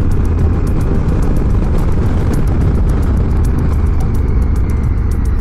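Adventure motorcycle riding at speed on a loose gravel road: a steady low engine and wind rumble, with irregular small clicks of gravel under the tyres.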